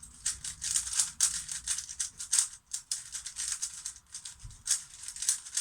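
MoYu Weilong WRM 3x3 speedcube, new and not yet set up, being turned quickly: its plastic layers click and rattle in rapid, uneven runs.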